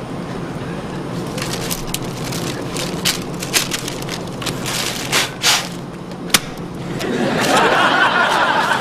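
A paper airsickness bag being handled and crumpled, giving a run of crisp crinkles and a sharp tick about six seconds in, over a steady airliner cabin hum. A louder rush of noise builds near the end.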